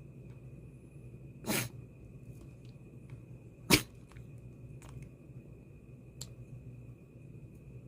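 A corgi with a cold and runny nose sneezing twice: a softer sneeze about a second and a half in, then a sharp, louder one near the middle.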